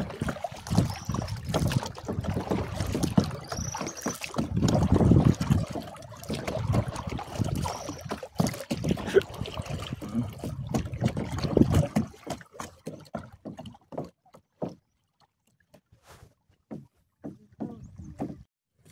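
Kayak paddle strokes in the water, splashing and dripping, with uneven low rumble from handling and wind on the microphone. About twelve seconds in the paddling stops, leaving only scattered small drips and knocks.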